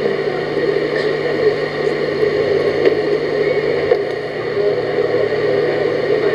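Steady whirring noise with a low hum and a few faint ticks, with no speech or music.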